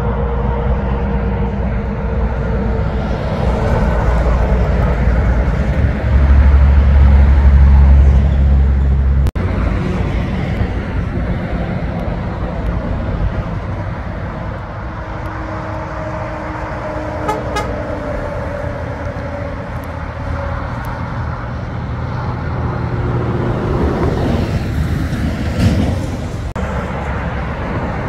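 Heavy trucks driving past on a road: a deep engine drone with tyre and road noise, loudest about six to eight seconds in. The sound breaks off sharply about nine seconds in, then more truck traffic passes.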